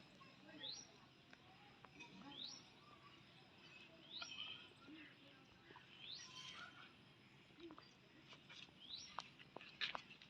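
Faint bird call: a short upward-sweeping whistled note repeated six times, about every second and a half to two seconds. A few sharp clicks come near the end.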